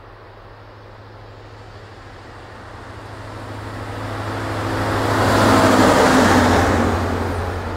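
Siemens ER20 Hercules diesel-electric locomotive running light past: its engine drone and wheel-on-rail noise build as it approaches, are loudest as it passes about halfway through, then begin to fade.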